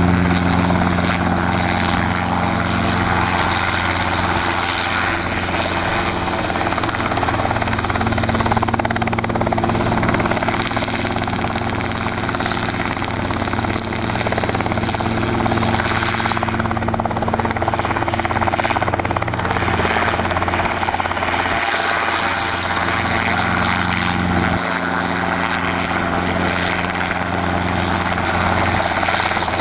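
Robinson R22 helicopter in a low hover, its piston engine and main and tail rotors running steadily.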